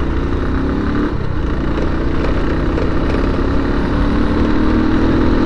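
Motorcycle engine running steadily, its pitch rising slowly over the last couple of seconds, with a low rumble underneath.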